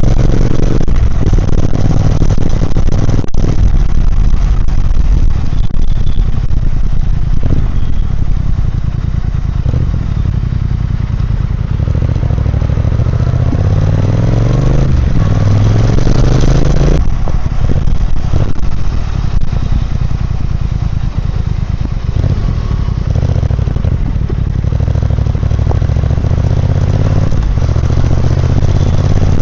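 Triumph Speed Twin 1200's parallel-twin engine and exhaust running under way, the revs rising and falling. Past the middle the revs climb for a few seconds, then drop suddenly.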